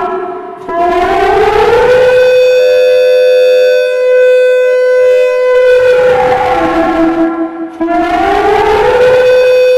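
D1200 siren sounding its "teho ulvo" (power howl) signal: a wailing tone that rises for about two seconds and holds steady. About six seconds in it falls away, then it rises and holds again near the end.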